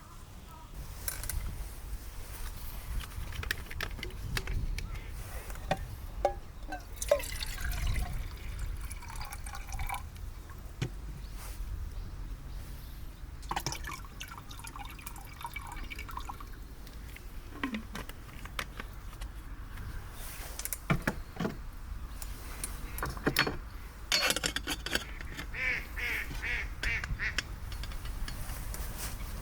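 Water poured and trickling, with scattered clicks and knocks of camp cookware being handled while coffee is made.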